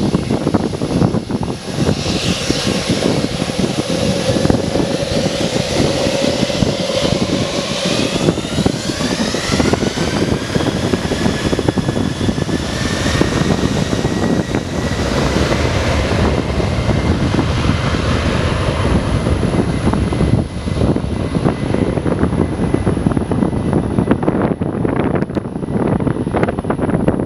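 Jet airliner engines at high power on the runway: a loud, steady roar, with a whine that rises in pitch about nine seconds in and then holds steady.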